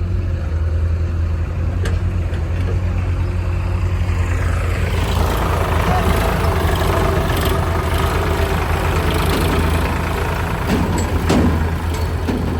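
Heavy diesel machinery engine running steadily. From about five seconds in, a louder rough rushing noise joins it, with a few sharp knocks near the end.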